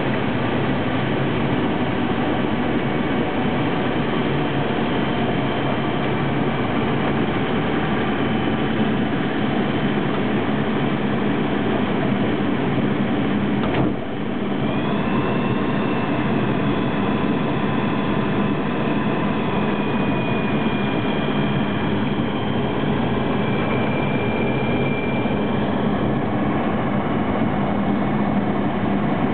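Engine and propeller of a Sting Sport light-sport aircraft running steadily, heard from inside the cockpit. A short click about halfway, after which the engine's tone shifts slightly.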